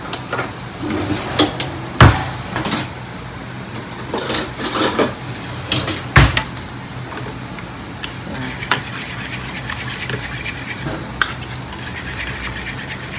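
Utensils stirring batter in a stainless steel mixing bowl: scraping and clinking against the metal, with two sharp knocks about two and six seconds in. From about eight seconds a fast, even clicking as a fork beats the batter to break up the unmixed egg yolks.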